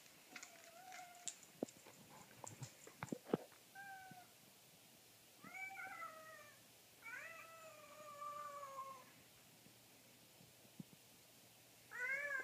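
Tabby cat meowing about five times, each call bending in pitch; the longest, near the middle, lasts about two seconds and falls steadily. A few sharp clicks and knocks come from the scuffle in the first few seconds.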